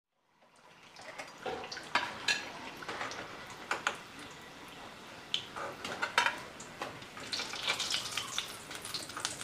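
Oil sizzling in a steel kadhai as fried samosas are scooped out with a perforated steel skimmer, with many sharp clinks and taps of the skimmer against the pan. It fades in from silence in the first half second.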